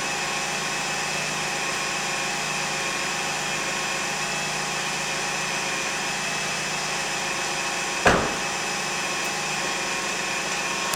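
2001 Lexus RX300's engine running steadily with a constant whine, the noise the owner is documenting. A single sharp knock about eight seconds in.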